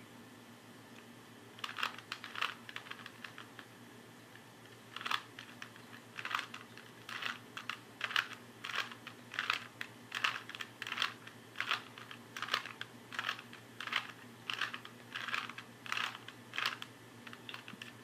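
Rubik's Cube layers twisted by hand: a run of short plastic clicks, a couple of turns a second, with a pause about three seconds in. These are the last moves that bring the final corner into place.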